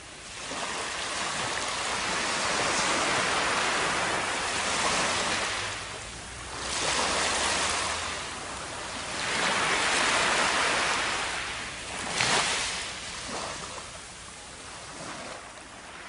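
Surf washing up on a sandy beach, rising and falling as several waves run in and draw back.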